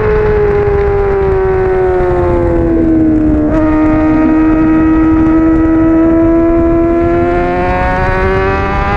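Honda CBR600RR inline-four engine heard onboard at racing speed, with wind rush on the microphone. The revs fall steadily, break briefly about three and a half seconds in, hold low while the bike is leaned through a corner, then climb again as the throttle opens near the end.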